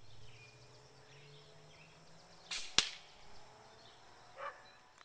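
A single shot from an AirForce Talon SS .177 pellet rifle with a suppressor, set to low power: a short muffled report, then a sharp snap about a third of a second later as the pellet arrives downrange.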